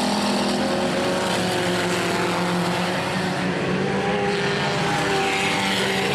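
Several stock cars racing together on a dirt oval, their engines running hard at a steady pitch in one continuous drone.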